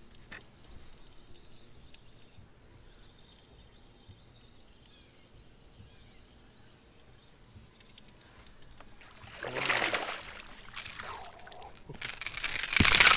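Water splashing as a hooked bass thrashes at the surface near the boat, coming in two bursts about nine and twelve seconds in, the second louder as the fish is swung out of the water and ending in a sharp knock.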